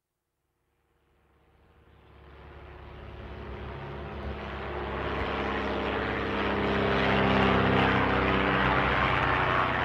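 An engine running steadily, growing louder over several seconds from about a second in until it levels off near the end.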